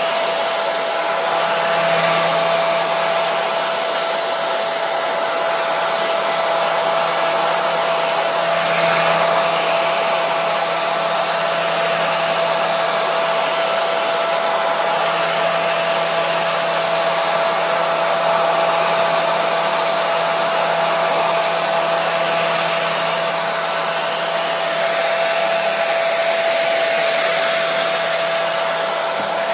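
Electric hair dryer running steadily, a constant rushing whoosh of air with a steady motor whine.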